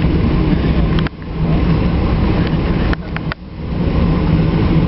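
Airliner engine noise heard inside the cabin: a loud, steady low rumble with a constant low hum. It drops out suddenly and briefly about a second in and again around three seconds in.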